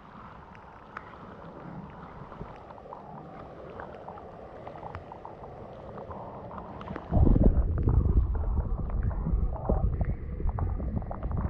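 A GoPro camera dipped into the Ipswich River: faint outdoor ambience with light handling clicks, then about seven seconds in the sound turns abruptly into a loud, muffled low rumble of water heard through the submerged camera.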